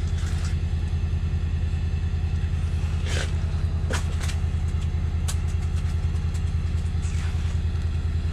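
An engine running steadily at idle: a low, evenly pulsing hum, with a few sharp clicks over it about three to five seconds in.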